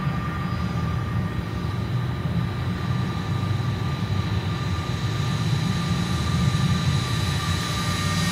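Steady high whine of the electric motors and propellers of an Estes 747 RC model airliner taxiing on the ground, over a low rumble, growing a little louder near the end.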